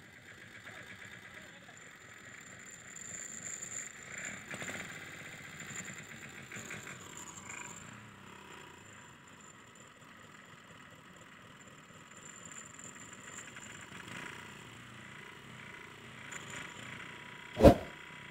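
Mahindra Yuvraj 215 NXT mini tractor's single-cylinder diesel engine running steadily and faintly at idle. Near the end, a single short, loud pop.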